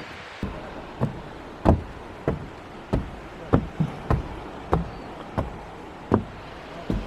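A series of sharp knocks on a hard surface, about a dozen, mostly a little over half a second apart and slightly uneven, over a faint steady background.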